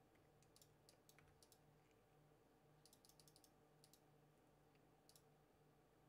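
Near silence: room tone with a few faint, sharp clicks of a computer mouse and keyboard, including a quick cluster around three seconds in.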